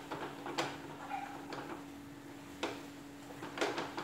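Wooden spatula scraping and knocking against a non-stick kadai as thick bread halwa is stirred, in a handful of separate strokes, with a cluster near the end.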